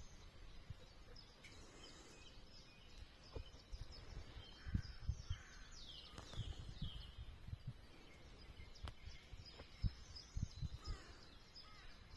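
Small birds chirping, with short down-slurred calls coming again and again, over irregular low thumps and rumble.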